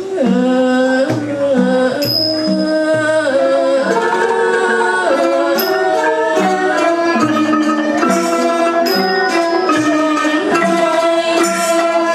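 Thai mahori ensemble with padded mallets playing a classical piece: khim hammered dulcimer, bowed saw fiddles and ranat xylophone together, the melody sliding in pitch in places, with high ringing strokes every few seconds.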